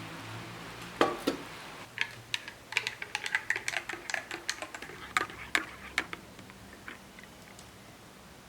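A run of light, sharp clicks and taps of small hard objects being handled: two loud clicks about a second in, then a quicker irregular patter of small clicks that thins out near the end.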